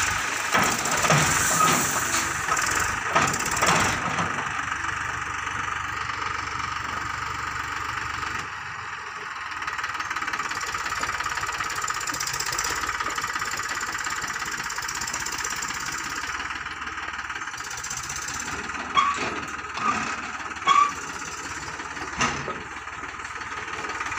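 Eicher 333 tractor's three-cylinder diesel engine running with a steady knocking clatter while its hydraulic tipping trolley dumps stone chips. A rough rattling rush of sliding gravel fills the first few seconds, then the engine runs on alone. Near the end come three short high squeaks, the loudest sounds here, and a single clunk.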